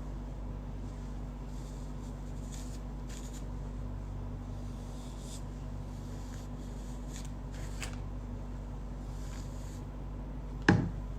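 A steady low electrical hum, with faint scattered rustling and small clicks of things being handled, and one sharp knock near the end.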